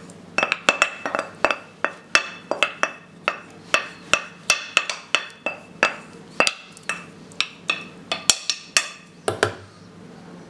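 Wooden spoon scraping and tapping grated tomato off a plate into a stainless-steel pot: a run of sharp clinks, about three a second, many with a brief ring.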